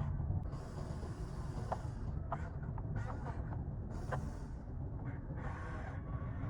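Radio-controlled toy construction machines working: small electric motors and gears whirring in short spurts that start and stop over a steady low rumble, with a few sharp clicks.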